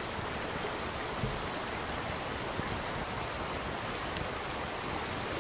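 Ribeye steak sizzling on a cast-iron grill grate over a wood fire: a steady, even hiss, with a few small pops from the fire.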